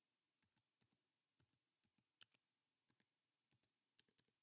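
Faint, irregular clicking of computer controls, more than a dozen sharp clicks with a quick run of three near the end.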